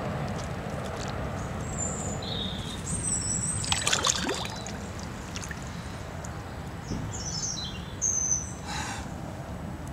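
Water splashing as a large mirror carp is released and kicks away through the shallows, loudest about four seconds in. Small birds chirp in the background.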